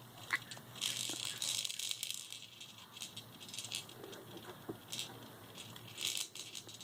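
Light, irregular rattling and clicking from the toys and frame of a Fisher-Price Rainforest Jumperoo baby bouncer as the infant moves in it, coming and going several times.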